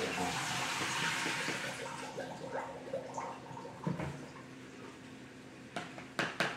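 Water running and splashing, strongest in the first couple of seconds and then tapering off, with a knock about four seconds in. Near the end comes a quick run of sharp clatters of kitchenware.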